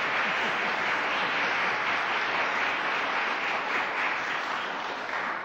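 Audience applauding, a steady patter of many hands that eases slightly near the end.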